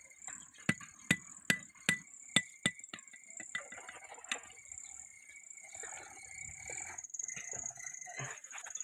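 A blacksmith's hammer striking metal on an anvil: about six sharp ringing blows, two to three a second, in the first three seconds, then a single blow about four seconds in and lighter clatter after.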